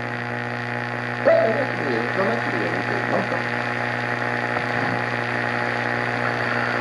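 Shortwave broadcast heard through a Grundig Satellit 750 receiver's speaker: steady static hiss with a constant low hum. From about a second in, a preacher's voice comes through faintly and then sinks back into the noise.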